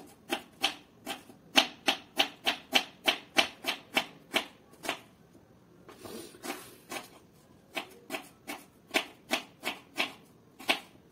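Kitchen knife chopping onion on a wooden cutting board: steady strokes about three a second, a pause with a soft rustle around the middle, then the chopping resumes.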